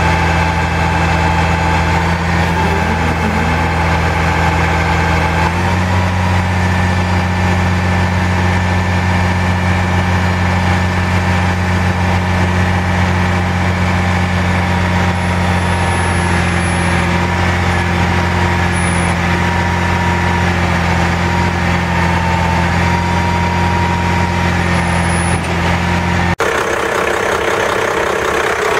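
The Cummins 8.3 L straight-six diesel of a Ford F800 digger derrick truck runs steadily while the derrick boom is worked, with a thin whine above the engine note. About five seconds in, the engine note steps up a little. Near the end the sound cuts abruptly to the engine idling, heard from a different spot.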